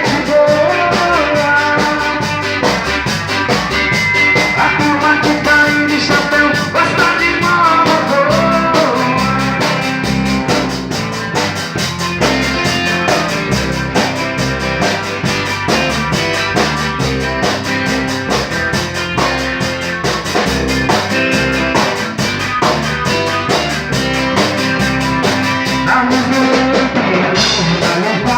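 Band music with a steady drum-kit beat, bass and melody lines, an instrumental stretch of a sertanejo-style song.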